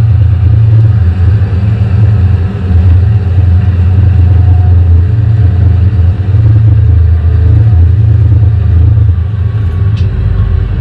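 Tractor engine running steadily under load, a loud low drone heard from inside the cab.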